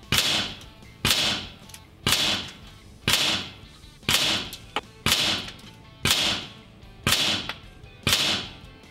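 Air Arms S510 TDR .22 PCP air rifle firing shot after shot, about one a second: nine sharp cracks, each dying away within half a second, over background music.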